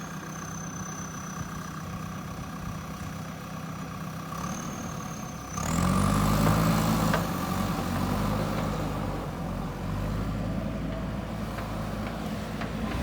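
JCB 3DX backhoe loader's four-cylinder diesel engine running steadily at low revs, then revving up about five and a half seconds in and running louder under load.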